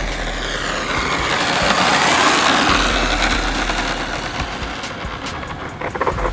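Redcat Earthquake 8E electric RC monster truck running on asphalt: the sensored brushless motor and the tyres on the road make a noisy whir that swells to a peak about two seconds in, then fades as the truck runs away.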